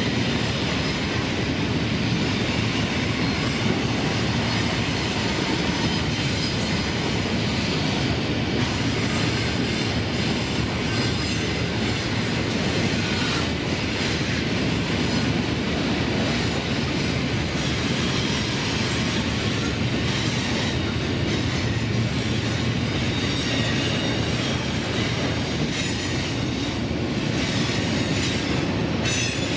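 Freight train of tank cars rolling past, with a steady rumble of wheels and clatter over the rail joints. Near the end, BNSF diesel locomotives at the rear of the train pass, adding engine sound.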